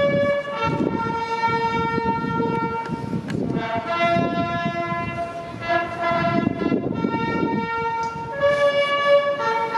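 Bugles sounding a ceremonial call: long held brass notes stepping up and down between a few pitches of the bugle's natural series, with one long held note in the middle.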